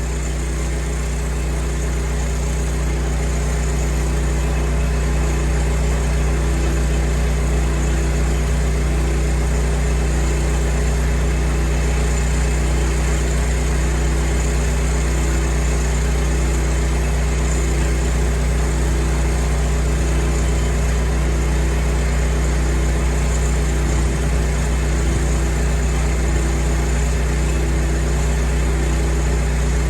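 Petrol-engine pressure washer running steadily at constant speed, a loud even drone with a faint pulse repeating about once a second.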